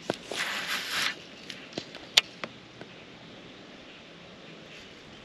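Rod and baitcasting reel being handled: a brief hiss about half a second in, then several short sharp clicks and taps over the next two seconds, after which only a faint steady background remains.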